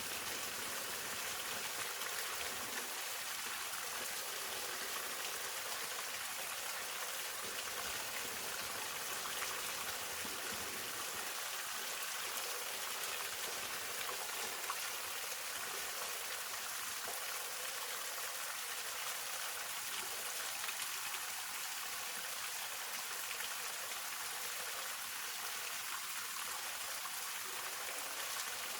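Hongryu Falls, a mountain waterfall: a steady rush and splash of falling water, with little deep rumble.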